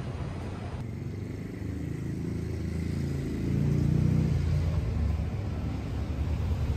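Street traffic rumble from a vehicle passing close by, swelling to its loudest about four seconds in and then easing off.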